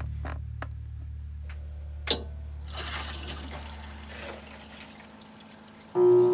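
A single sharp click about two seconds in, then a soft hiss. Near the end the boat's air conditioner starts with a sudden, steady, loud hum that holds one clear tone.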